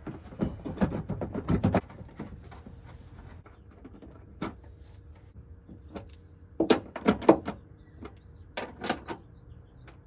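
Plastic clicks and knocks as a rocker switch panel is pushed into its mount in a pickup bed wall and its screws are set by hand. There is a quick cluster of clicks in the first couple of seconds, then sharper clicks around seven and nine seconds in.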